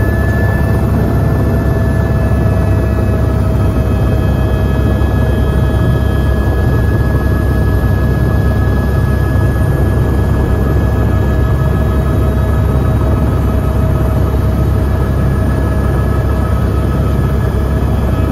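Helicopter engine and rotor running steadily, heard from inside the cabin: a heavy low rumble with a steady turbine whine over it.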